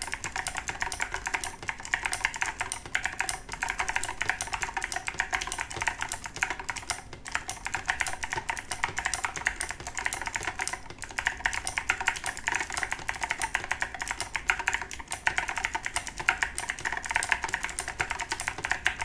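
Continuous fast typing on a Razer BlackWidow Tournament X Chroma mechanical keyboard with clicky Razer Green switches and SA-profile keycaps, a dense stream of sharp key clicks. It pauses briefly about seven and eleven seconds in.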